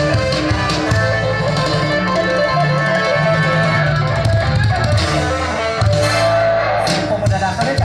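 Music led by guitar, with held notes over a steady bass line.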